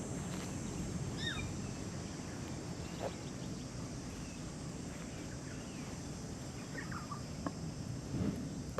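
A few short, falling calls from parrots, one about a second in and a few more around seven seconds, over a steady low rumble of wind on the microphone.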